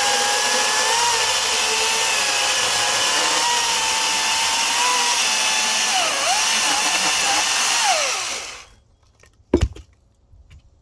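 Battery-powered electric chainsaw running and cutting sycamore, a steady high motor whine whose pitch dips and wavers as the chain loads up in the wood. It then winds down and stops, and about a second later there is a single heavy thud.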